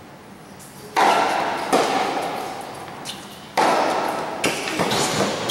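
Tennis ball being hit back and forth with racquets: five sharp pops, the loudest about a second in and again a little past halfway. Each one echoes under the roof of the covered court.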